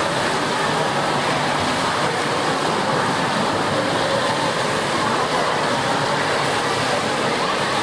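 Steady splashing of competitive swimmers racing in an indoor pool, a dense echoing wash of water noise mixed with blurred spectator voices.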